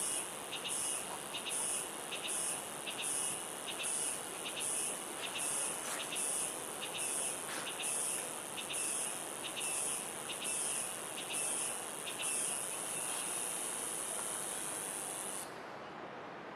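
Insects calling in a pulsing chorus, a high buzz repeating about one and a half times a second over a steady hiss; the calls cut off suddenly near the end.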